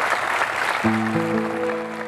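Audience applause, with a held chord from a musical instrument coming in a little under a second in. A second note is added just after, as the clapping fades.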